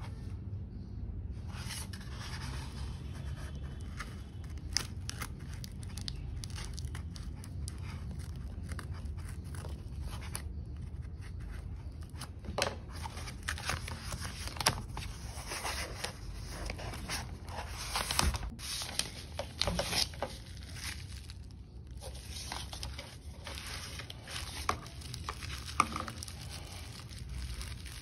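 Parcel packaging being cut and torn open: scissors snipping through a plastic mailer bag, with the plastic tearing and crinkling and a cardboard box being unfolded. Irregular rustles and sharp clicks, busier in the second half.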